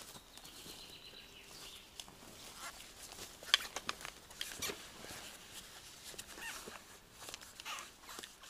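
Dry rolled birch bark being handled and stacked: scattered rustling and crackling, with one sharp snap about three and a half seconds in.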